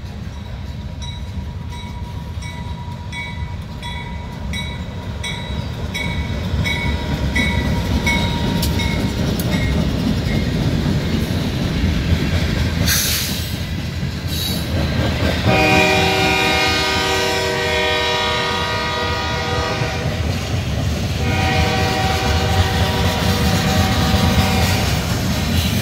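BNSF grain train's covered hopper cars rolling past with a steady rumble of wheels on rail and an even clicking over the rail joints, which fades out after about ten seconds. Two brief hisses come about halfway through. Then the locomotive horn sounds a long chord, breaks off briefly, and sounds again.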